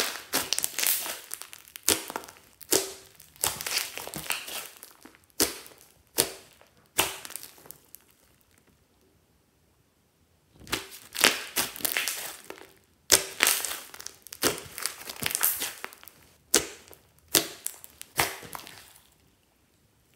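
Thick foam-bead slime being squeezed, pressed and stretched by hand, crackling and popping in repeated bursts, with a pause of about two seconds midway.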